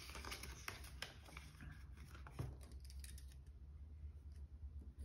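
Faint desk-handling noises: paper banknotes and plastic binder pages rustling, with scattered light clicks.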